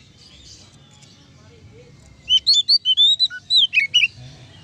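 Oriental magpie-robin (kacer) singing a loud burst of quick, sliding whistled notes. The burst begins a couple of seconds in and lasts about two seconds.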